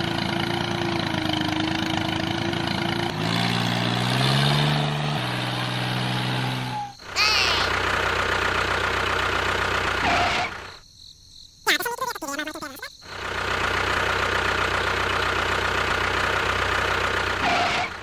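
Tractor engine running steadily, broken by short breaks about 7 and 11 seconds in.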